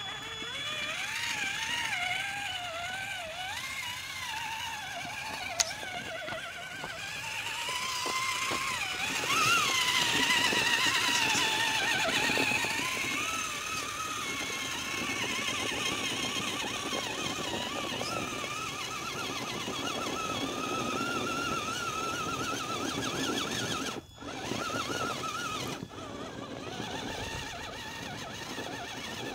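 Traxxas Summit RC truck's electric motor and gearbox whining, the pitch rising and falling constantly with the throttle as it crawls over sand, loudest about ten seconds in.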